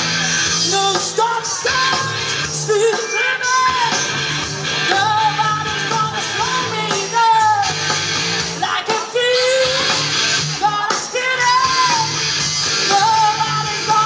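Rock song playing, a sung melody over bass, guitar and drums.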